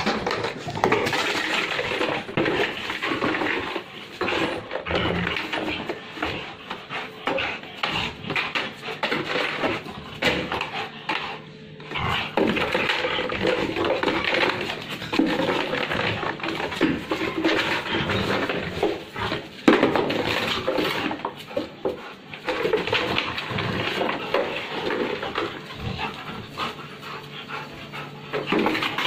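Rottweiler panting and growling as it bites, shakes and pounces on a blue plastic container; the plastic crackles and knocks against the ground in an uneven stream, with a short lull about a third of the way in.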